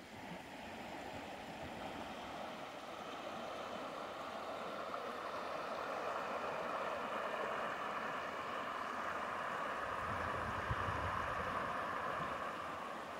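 Shallow river running over rocks and riffles: a steady rushing of water that grows louder over the first few seconds.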